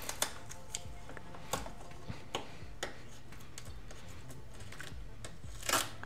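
Light clicks and taps of hands handling the plastic drip tray of a Nespresso Lattissima One espresso machine while peeling protective tape off it, with a short louder rasp near the end.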